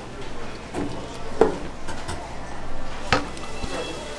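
Kitchen clatter: a few sharp clinks and knocks of utensils and dishes, the two clearest about a second and a half and three seconds in.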